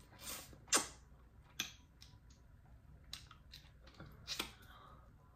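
Eating sounds: scattered sharp, wet mouth clicks and smacks as a bite of food held to the lips is bitten and chewed.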